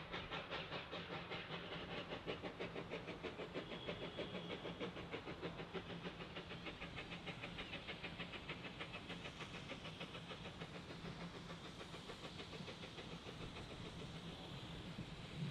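Narrow-gauge steam locomotive working along the line, its exhaust chuffing in a quick, even beat that grows a little fainter in the second half.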